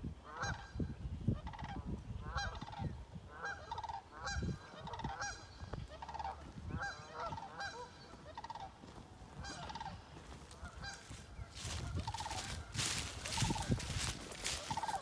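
Sandhill crane giving its rolling, rattling bugle call over and over, each trill short and repeated about once a second. A stretch of rushing noise rises under the calls near the end.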